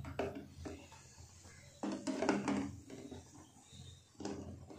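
Eggs being set by hand into a metal pot of water, giving a few soft knocks and clatters against the pot and each other, the busiest cluster about two seconds in and one more knock near the end.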